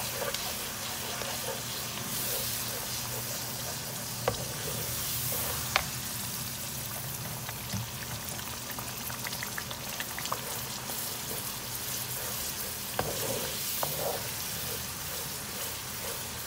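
Blended chilli paste sizzling in hot oil in a non-stick wok while a wooden spatula stirs it, with a few sharp clicks along the way. The paste is being fried until the oil separates from it (pecah minyak).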